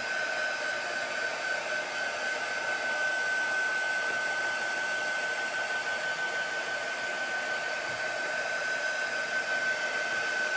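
Handheld craft heat tool blowing steadily, with a constant high whine from its fan, drying freshly applied ink so the next colour layered on won't bleed.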